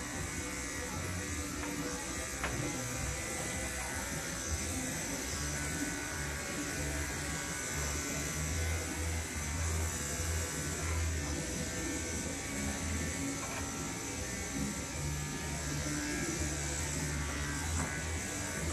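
Corded electric dog grooming clippers buzzing steadily as they shave a Labradoodle's curly coat short, with background music.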